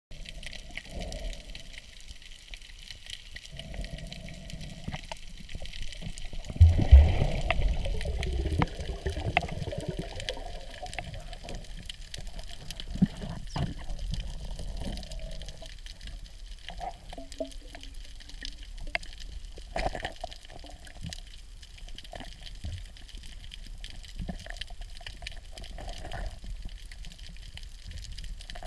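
Underwater sound picked up by a submerged camera: water moving and bubbling around it, with scattered small clicks and a louder low rush about seven seconds in.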